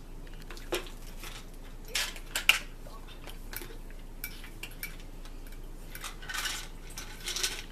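Metal forks clicking and scraping against ceramic plates, with a few sharp clinks about two seconds in. Near the end comes a short rattling shake from a shaker bottle over a plate.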